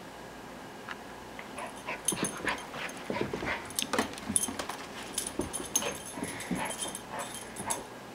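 Six-month-old puppy playing with a ball toy: a busy run of clicks and knocks from the toy and its paws on the floor, mixed with small vocal noises from the puppy, starting about a second and a half in and stopping just before the end.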